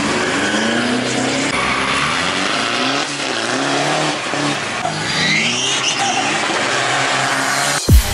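Turbo-diesel drag vehicles at full throttle down the strip, engines revving up and dropping in pitch through gear changes, with tyre and wind noise. Near the end a deep booming bass hit of music cuts in.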